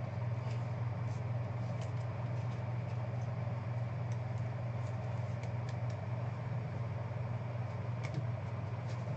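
Steady low background hum, with a few faint taps and clicks as trading cards and boxes are handled on the table.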